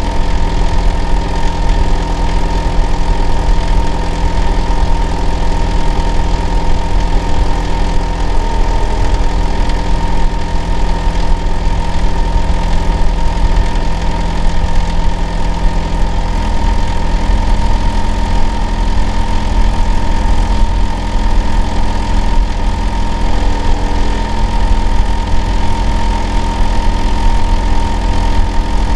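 Hitachi air-conditioner outdoor unit running steadily, with a loud low hum under a steady high whine. About halfway through, one of its lower tones steps to a new pitch. It is a neighbour's unit that runs all year and is complained of as noisy and abnormal-sounding.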